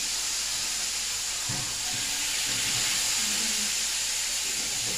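A steady high hiss, with faint murmured voices underneath it.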